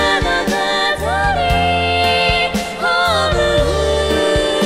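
Live song: female vocalists singing into microphones over a full band, with a steady bass line and regular drum hits.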